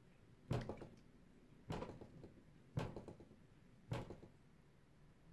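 Four knocks about a second apart on the hard plastic case of a car battery, each with a short rattle after it: the battery top being tapped beside its built-in hydrometer indicator eye to shake the indicator so its colour shows.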